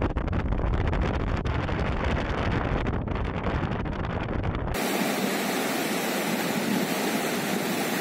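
River rapids rushing over rocks, with wind buffeting the microphone as a low rumble for the first half. About halfway through, an abrupt cut to another recording of rushing water that is hissier and has no wind rumble.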